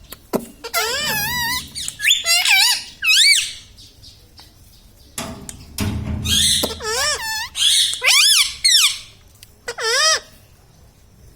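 Indian ringneck parrot squawking and chattering in quick, wavering, high-pitched calls, in two main bouts with a short pause between them and a last call near the end.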